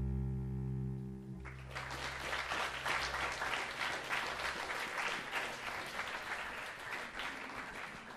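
A cello's sustained low notes end about a second and a half in, and the audience then applauds.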